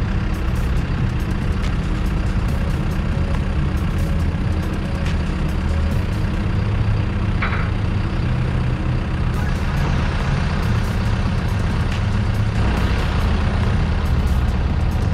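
Caterpillar backhoe loader's diesel engine running steadily as the machine moves, with a brief higher-pitched sound about seven and a half seconds in.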